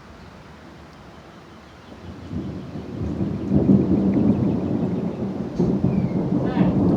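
Thunder arriving about two seconds in: a long, low rumble that builds quickly, grows loud and keeps rolling.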